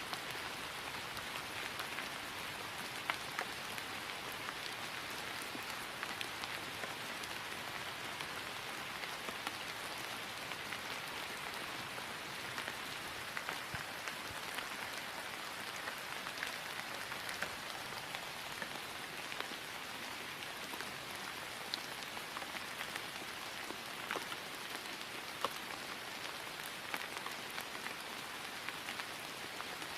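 Steady rain falling on grass, an even hiss with scattered louder drop ticks.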